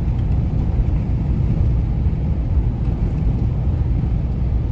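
Steady low rumble of a 1998 Chevy C1500 pickup cruising at about 35 mph with light throttle, engine and road noise heard from inside the cab.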